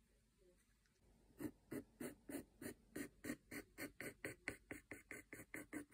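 Pencil scratching across the bare wooden lid of a box in quick strokes, about four a second, starting about a second and a half in, while lines are sketched.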